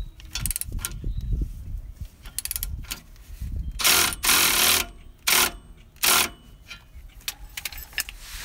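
Milwaukee cordless ratchet running in four short bursts, the longest about a second, spinning a bolt on the exhaust downpipe, with light clicks of the tool before and after.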